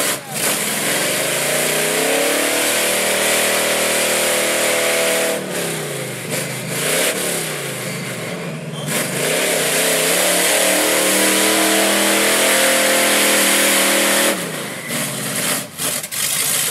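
Lifted 4x4 mud truck's engine revving hard with its big tires churning in a mud pit, the truck hardly moving. The revs climb within the first two seconds and hold high, dip and waver about six seconds in, climb again and hold, then fall off about fourteen seconds in.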